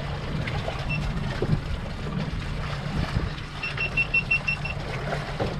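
Boat engine running steadily, a low hum under wind and water noise. About a second in there is a single short high electronic beep, then a quick run of about seven more beeps a little past halfway.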